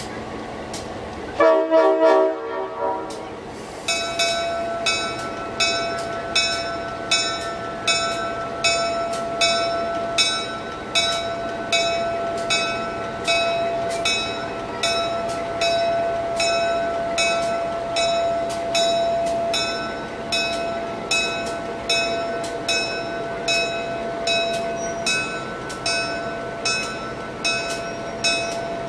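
Diesel locomotive horn gives one short blast about a second and a half in. Then the locomotive bell starts ringing steadily, a little over one stroke a second, as the engine moves at walking pace.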